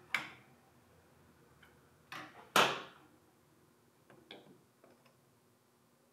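A few separate knocks and clunks, the loudest about two and a half seconds in, with lighter ones a little after four seconds.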